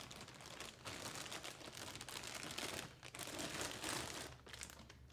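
Clear plastic wrapping crinkling irregularly as it is pulled off a replica fossil jaw cast.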